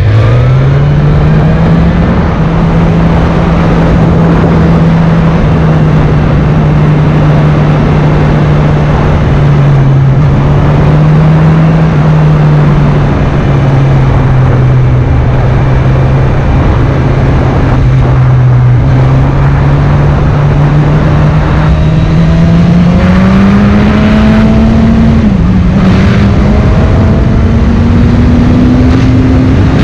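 Sport motorcycle engine heard from on board while riding: the engine note rises as the bike pulls away, holds fairly steady while cruising, then climbs again about three quarters of the way through, with a brief dip in pitch in the middle of that climb. Heavy wind and road noise run underneath.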